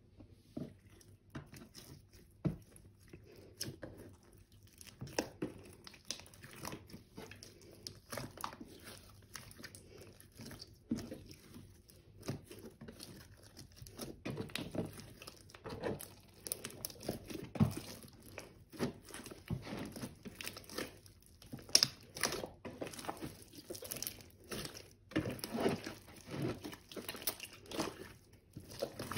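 A big mass of slime being squished, stretched and kneaded by hand, with dense, irregular sticky pops and crackles.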